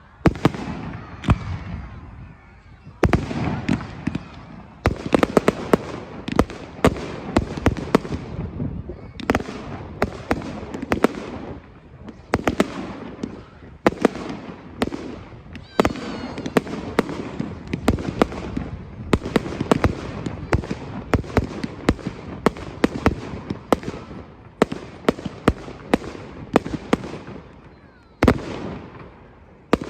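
Aerial fireworks display: a dense barrage of shell bursts, sharp bangs following one another every fraction of a second, each with an echoing tail, with a brief lull near the end before the bursts resume.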